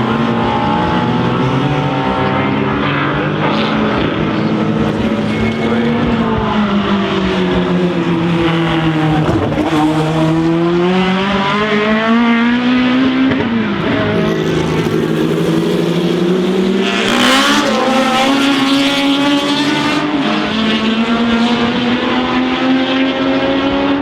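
Racing car engines running hard on track, the pitch falling and rising again twice as the cars brake and accelerate, with a short burst of noise about seventeen seconds in.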